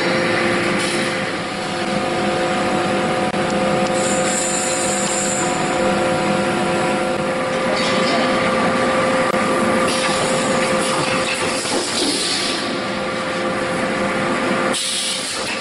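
Automatic wire mesh welding and bending machine running: a loud, steady machine noise with a few constant hum tones, turning into a sharper hiss near the end.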